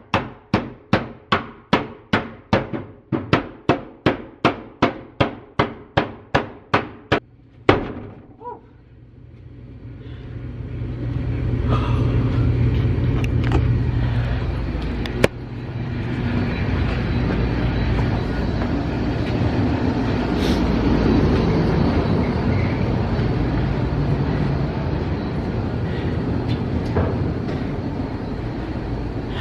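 A rapid, even run of sharp knocks, about three a second, each ringing briefly in an echoing basement, ending with two louder single knocks. After that a steady noise with a low hum builds up and keeps going, with one sharp click partway through.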